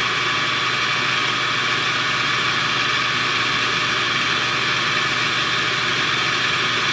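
Metal lathe running steadily at about 1400 RPM, a steady whine made of several high tones, while a diamond triangle file is held against a glass test tube spinning in its collet to score it.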